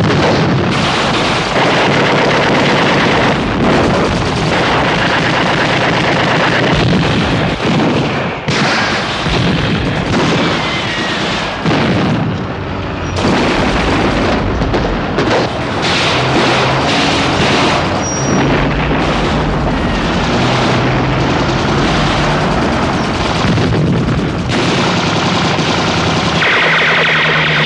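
Film battle sound effects: a loud, dense barrage of explosions going off one after another amid machine-gun fire.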